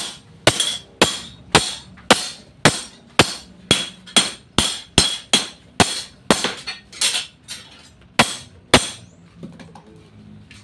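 Blacksmith's hand hammer striking steel, regular ringing blows about two a second that stop about nine seconds in.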